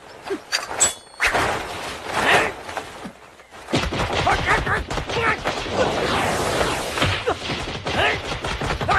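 Fast sword-fight sound effects: a rapid run of blows, thuds and swishes. A few sharp hits come first, then the action turns dense and continuous from about four seconds in.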